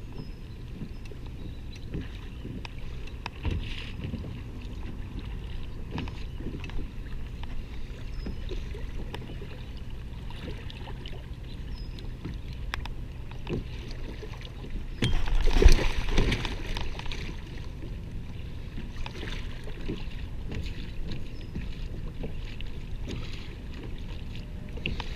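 Small waves lapping against a kayak's hull, with light wind on the microphone and scattered small knocks. About fifteen seconds in, a louder rush of noise lasts about a second and a half.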